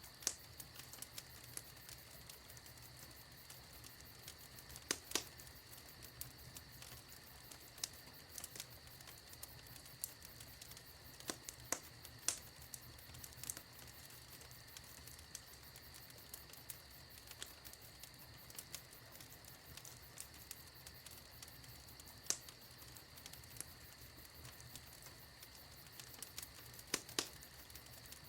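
Fireplace fire crackling: irregular sharp pops and snaps over a faint steady hiss, with a few louder pops scattered through.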